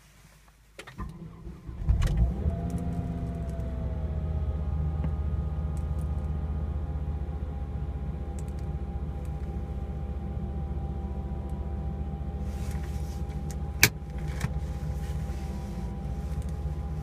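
Volvo V70R's turbocharged five-cylinder engine cranking and starting about a second in, its revs settling to a steady idle with a steady whine running over it; the owner puts the noise down to the alternator, probably a bad bearing. A single sharp click near the end.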